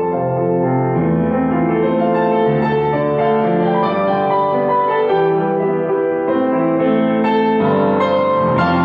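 Steinway & Sons K-52 upright piano being played: a continuous flow of chords and melody notes, each left to ring as the next ones come in.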